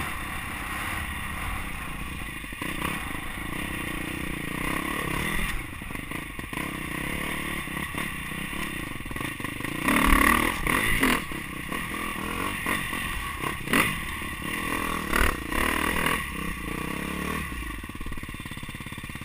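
KTM motocross bike's engine running and revving as it is ridden over a rough dirt track, with rattles and knocks from the bike and camera over the bumps. The sound is louder and busier from about ten seconds in, as the bike goes over a log, and it settles to a lower, steadier engine note near the end as the bike slows.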